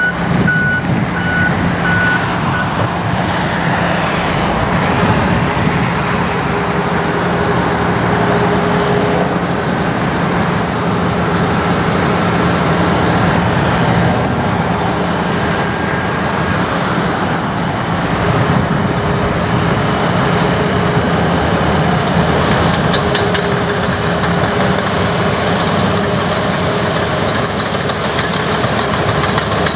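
Heavy construction machinery working: large diesel engines running loud and steady, with a short run of high beeps in the first couple of seconds.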